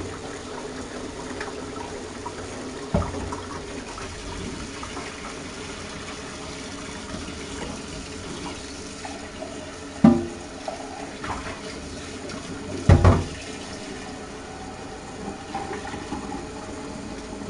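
Water running steadily into a sink or basin, with a soft knock about three seconds in and two louder thumps about ten and thirteen seconds in.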